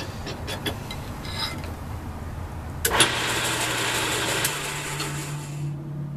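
Small wood lathe switched on with a sharp click about three seconds in, then running with a steady whir as the mandrel spins the squared cocobolo pen blanks, with no tool cutting yet. The whir drops away near the end as the lathe is switched off, leaving a brief low hum.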